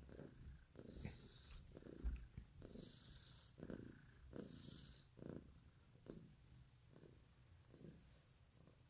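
Long-haired white Persian-type cat purring softly, the purr swelling and fading with each breath, roughly once a second, and growing quieter toward the end.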